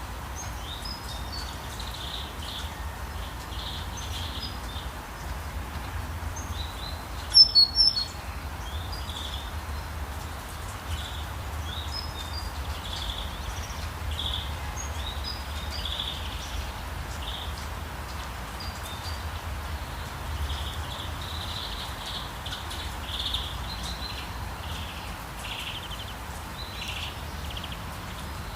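Steady rain hiss with a low rumble underneath, and songbirds chirping on and off throughout. A short, loud burst of sharp, high notes stands out about seven seconds in.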